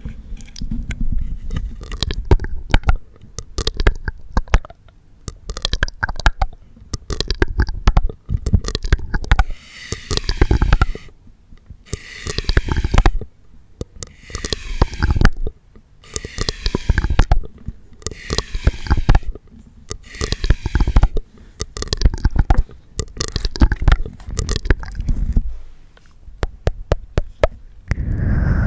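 Close-miked ASMR mouth sounds: rapid wet tongue clicks and smacks. Through the middle, longer wet mouth noises come about every two seconds.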